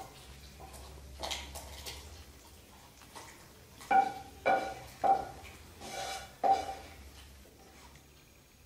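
Wooden spatula scraping cooked curry out of a nonstick pan into a glass bowl, with about half a dozen sharp clacks and knocks of spatula, pan and bowl, each ringing briefly. The clacks come mostly between about four and seven seconds in.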